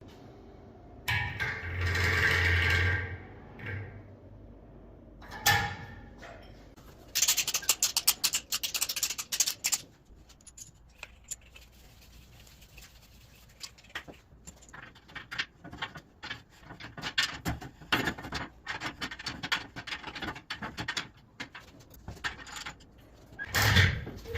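Metal tools and parts being handled during plumbing work: clinks, scrapes and rattles. Near the start there is a steadier stretch with a low hum. About 7 s in comes a dense run of rattling, and a burst near the end.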